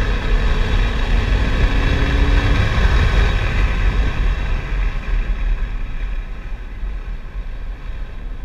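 Chevrolet Corvette C7's V8 engine running hard at track speed, heard inside the cabin over wind and tyre noise. The engine note falls away after about five seconds.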